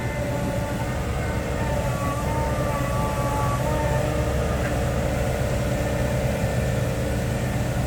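Diesel engine of a loaded six-wheel dump truck working hard as it pulls through soft sand: a steady low drone, with a wavering whine over it for a couple of seconds in the first half.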